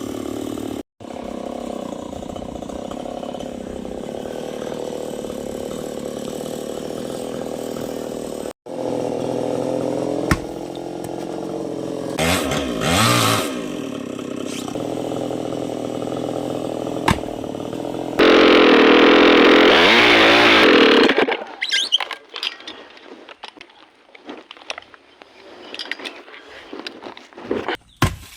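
Chainsaw running at a steady idle, revving up a few times, then at full throttle for about three seconds as it cuts through the coconut tree trunk, and stopping about 21 seconds in. After that, scattered quieter knocks.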